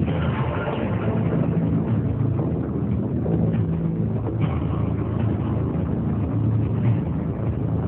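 A vehicle engine running steadily: a low hum under an even noisy rush.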